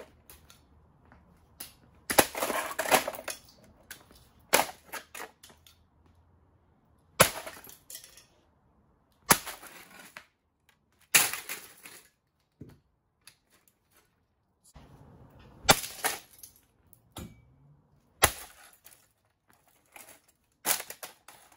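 A Zenith VCR's plastic casing being smashed: about ten hard, sharp blows spread out irregularly, some followed by a short rattle of breaking parts.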